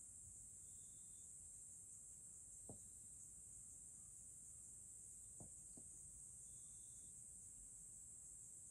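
Near silence apart from a steady high-pitched insect drone, like crickets. Three faint clicks sound, one near three seconds in and two close together about five and a half seconds in.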